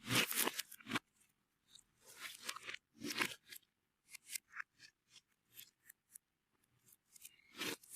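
Slime being worked by hand, giving crisp crunching and crackling in irregular bursts: a dense cluster in the first second, scattered small crackles through the middle, and another burst near the end.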